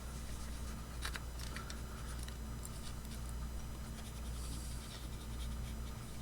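Steady low electrical hum, with scattered faint clicks and scratches of small hand tools handling a circuit board; one sharper click about a second in and a short hiss near the end.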